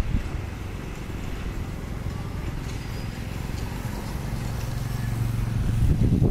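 Caterpillar 320D excavator's six-cylinder diesel engine running while it digs, its low steady note getting louder in the last couple of seconds as the engine takes more load.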